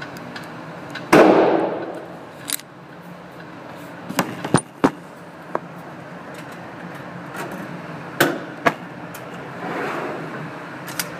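A single AR-15 rifle shot about a second in, its report trailing off over about a second, followed by scattered sharp clicks and knocks.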